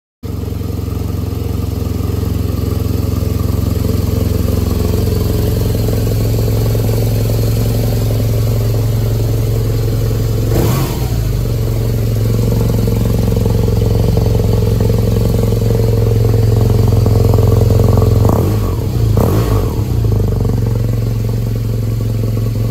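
BMW R nineT Urban G/S's 1170 cc air/oil-cooled boxer twin running steadily at idle, with two short changes in the sound, one about halfway through and one near the end.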